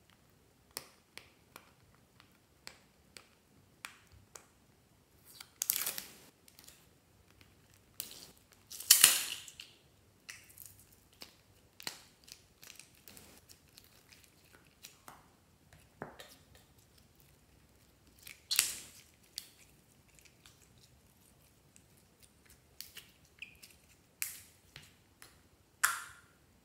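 A plastic ball being cut open and the glitter slime inside squeezed out by hand: many short clicks and snips, with a few longer, louder noises about six, nine and eighteen seconds in and again near the end.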